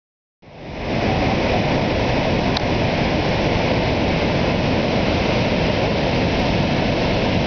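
Steady rushing of the water of Niagara's Horseshoe Falls, a dense, heavy rumble that fades in over the first second and then holds even.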